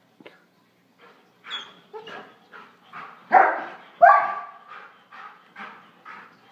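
German Shorthaired Pointer barking and yipping in short, quick calls while it chases a spot of light, with two loud barks a little past the middle and softer ones after.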